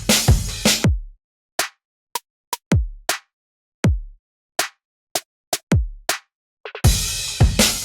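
Background music with an electronic drum-machine beat. About a second in, the full mix drops away to sparse single drum hits, some of them deep kicks that fall in pitch. The full beat comes back near the end.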